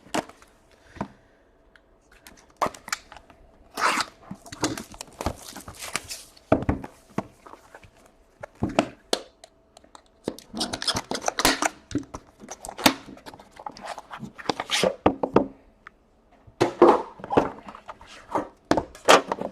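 Packaging being torn open and handled as boxes of hockey cards are unwrapped: irregular rustling and tearing with a few sharp knocks.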